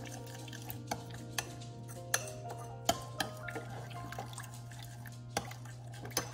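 Metal spoon stirring a thin flour-and-water sourdough starter mixture in a ceramic bowl, clinking and tapping against the bowl's side at irregular moments.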